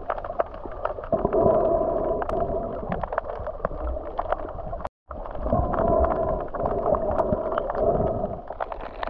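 Underwater sound through a snorkeler's action camera: muffled water noise with a steady hum and many small clicks, cut by a brief dropout about five seconds in.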